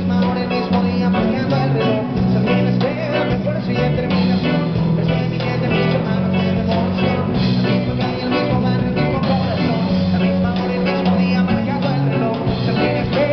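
A live rock band playing amplified electric bass and electric guitar over drums, at a steady beat.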